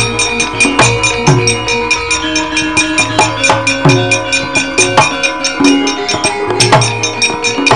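Gamelan playing a lively fight accompaniment for wayang kulit. The dalang's cempala and keprak knock rapidly and evenly over the metallophones, and kendang drum strokes drop in pitch at intervals.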